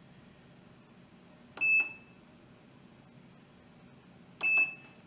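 Electric pressure cooker's control panel beeping twice as its buttons are pressed to set it to brown/sauté: each a button click and a short high beep, about a second and a half in and again near the end.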